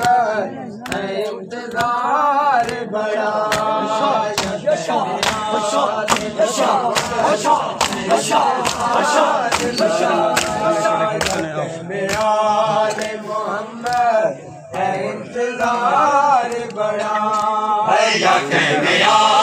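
Men chanting a noha, a Shia mourning lament, in chorus, over a steady beat of open-handed slaps on bare chests (matam), about two a second.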